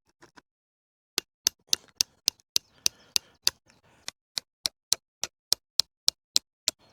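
Back of an axe head tapping the spine of a knife, about twenty quick, sharp strikes at three or four a second with a short pause midway, driving the blade in to split the end of a wooden bow stick.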